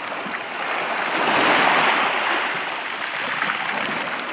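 Black Sea surf washing on the rocks: a steady hiss that swells about a second and a half in and then eases.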